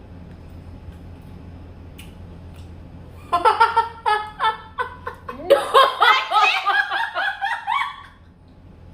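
Low room hum, then about three seconds in a burst of laughter that runs for about five seconds: quick bursts at first, then giggles with rising and falling pitch.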